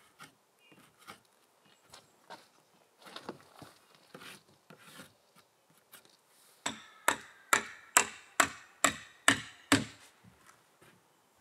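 Hammer blows on wood: scattered light taps, then about two thirds of the way in a run of about eight hard, evenly spaced strikes, roughly two a second.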